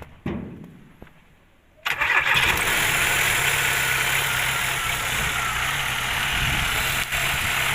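Car engine starting, catching about two seconds in and then idling steadily. The freshly refitted alternator and its drive belt are spinning, running smoothly.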